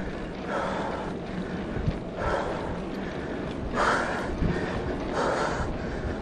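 A mountain-bike rider breathing hard while riding: four loud breaths about a second and a half apart, the loudest about four seconds in, over a low wind rumble on the microphone.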